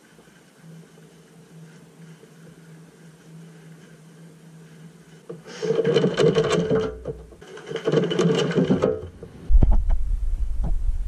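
A wet long-haired dog shaking itself off twice, each shake a rapid flapping rattle of ears and wet fur lasting about a second and a half. Near the end comes a loud low rumble close to the microphone.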